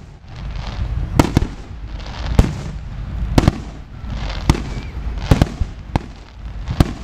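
Aerial firework shells bursting in a steady string of sharp bangs, about ten of them and some in quick pairs. Crackling and a low rumble fill the gaps between them.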